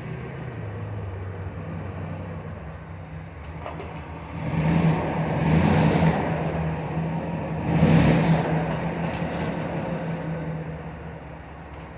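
Chevy Blazer ZR2's 4.3 L V6 running after its timing has been reset, idling steadily and revved up twice, about four and eight seconds in.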